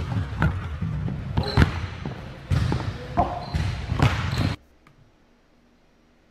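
Basketball bouncing on a hardwood gym floor, several sharp bounces ringing in the large hall. It cuts off suddenly about four and a half seconds in.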